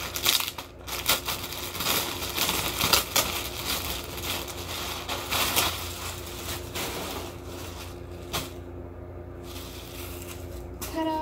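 Clear plastic poly bag crinkling and crackling as a sweater is pulled out of it and the bag is crumpled up, with many sharp crackles. After about seven seconds it drops to quieter handling.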